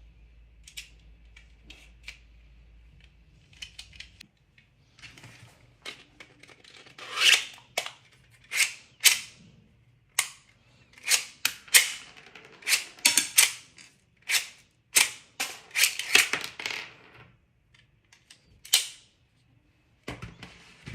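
3D-printed plastic shell-ejecting toy pistol being worked, giving a rapid, irregular run of sharp plastic clacks. A few faint clicks come first, then about a dozen and a half loud clacks from about six seconds in until near the end.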